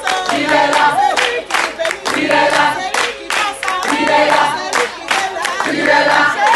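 A group of voices singing a short phrase over and over, with steady hand clapping.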